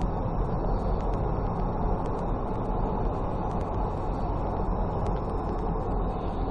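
Steady driving noise of a car on the road: engine and tyre rumble as heard from inside the moving car, with no sharp impacts.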